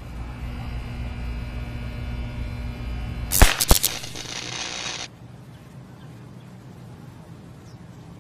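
A steady electrical hum, then two sharp cracks about a third of a second apart as a power line arcs over at the top of a utility pole, where a red-bellied woodpecker has shorted it. A sizzling buzz follows for about a second and a half and cuts off suddenly.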